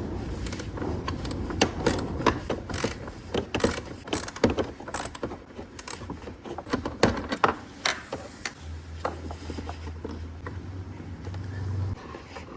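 A wrench working the single 5/16 bolt that holds a motorcycle turn indicator inside the fairing: irregular clicking and knocking of the tool on metal and plastic. A low hum runs for a few seconds near the end.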